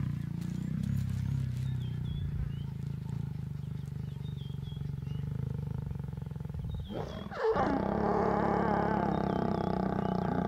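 A pair of African lions growling while mating: a low, pulsing rumble of a growl, then about seven seconds in a sudden louder snarl that carries on, as the lioness bares her teeth.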